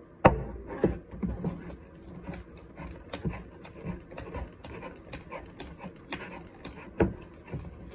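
A mixing spoon stirring thick, sticky glue-and-saline slime in a clear plastic bowl: irregular squelching strokes and scrapes, with sharper knocks of the spoon against the bowl, the loudest just after the start and another about seven seconds in.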